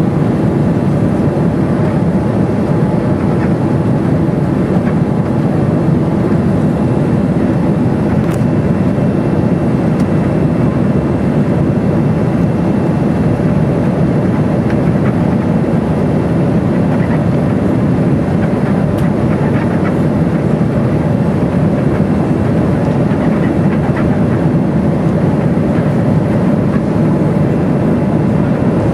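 Steady cabin roar of a Boeing 787-9 in flight, heard from a window seat beside the engine: engine noise and rushing air.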